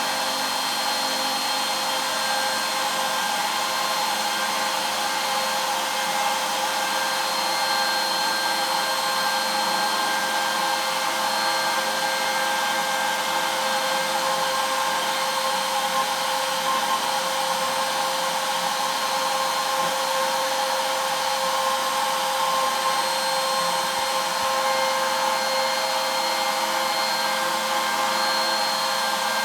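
CNC router spindle running at a steady whine with several fixed tones, carving walnut with a 1/16-inch ball-nose bit on a light finishing pass.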